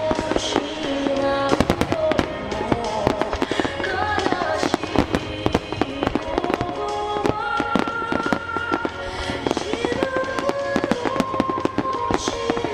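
Fireworks shells bursting and crackling in many rapid sharp bangs, thickest from about a second and a half in, over music with long held melody notes.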